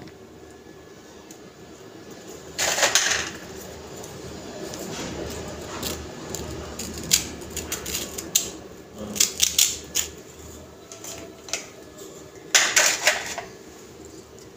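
A small table knife scraping the cream filling out of Oreo biscuit halves, with light clicks and taps of knife and biscuits against a steel plate. Two louder scrapes come about three seconds in and again near the end.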